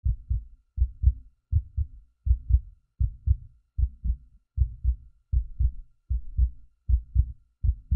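Heartbeat sound effect: steady paired low thumps, lub-dub, about eighty a minute.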